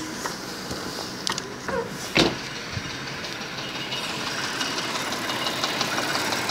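1996 Audi A4's 2.6-litre six-cylinder petrol engine running, with fine ticking and one sharp click about two seconds in. The owner diagnoses the engine with a connecting-rod knock in the first cylinder.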